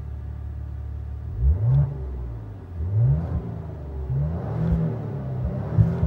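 2016 Maserati Ghibli SQ4's twin-turbo V6 with its stock exhaust in Sport mode, free-revved in Park from inside the cabin: the engine is blipped about four times, each rev climbing and falling back to a rumbling idle.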